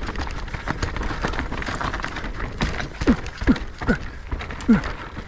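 Mountain bike riding fast down a dirt trail: the bike rattling and knocking over bumps, with wind rumbling on the microphone. From about three seconds in, the rider gives several short falling grunts or breaths, about half a second apart.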